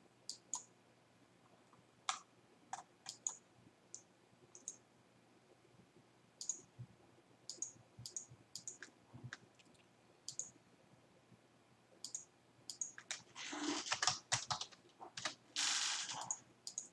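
Computer mouse and keyboard clicks from someone working at a PC: single sharp clicks scattered every second or so, then two short dense runs of rapid clicking near the end.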